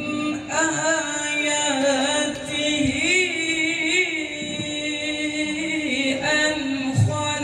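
Male qori's melodic Quran recitation (tilawah): one long, held phrase with wavering, ornamented turns, a new phrase beginning near the end.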